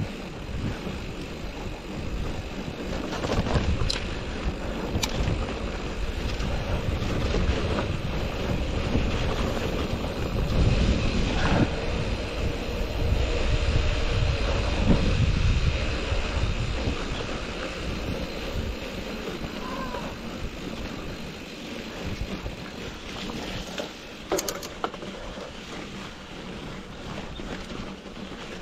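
Mountain bike ride on a dirt road: wind buffeting the microphone over the rumble of the tyres on gravel, loudest in the middle stretch, with a few sharp clicks from the bike rattling.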